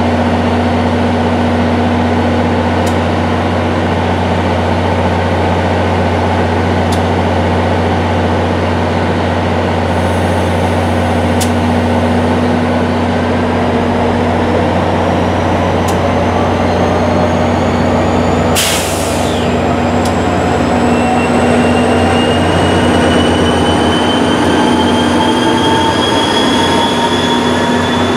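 A GP40PH-2B diesel locomotive's engine hums steadily as it stands at the platform. From about halfway through, a whine rises slowly in pitch as the locomotive pulls its train away and picks up speed. A short sharp hiss of air comes about two-thirds of the way through.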